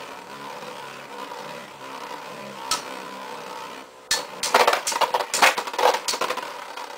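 Metal Fight Beyblade tops whirring steadily as they spin in a plastic stadium. From about four seconds in, a loud, rapid clatter of clicks and knocks begins as the metal-wheeled tops collide again and again.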